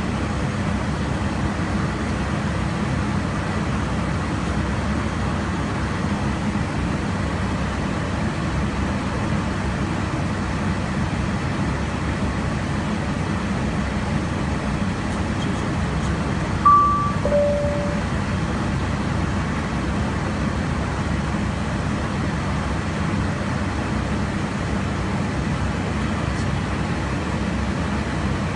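Steady noise of air and engine inside a fighter jet's cockpit in cruise flight. About halfway through, a short two-note beep, high then low, sounds once.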